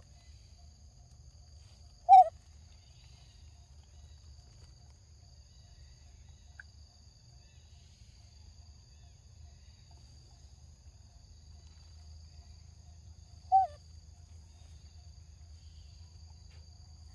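Two short, loud animal calls, each falling slightly in pitch, about two seconds in and again some eleven seconds later, over a steady high insect drone.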